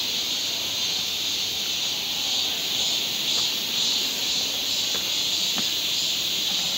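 A steady, high, hissing chorus of insects, with a few faint ticks in the second half.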